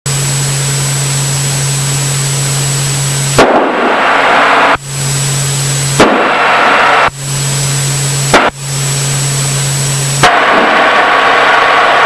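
Steady in-flight cabin noise of a Diamond DA40 light aircraft: a loud engine and propeller drone with a low hum and airflow hiss. About six sharp clicks break it, each time abruptly changing the character of the noise.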